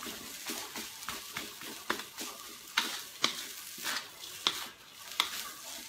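Wooden spatula scraping and knocking against a metal wok about twice a second, stir-frying fried rice, over the steady sizzle of the rice frying.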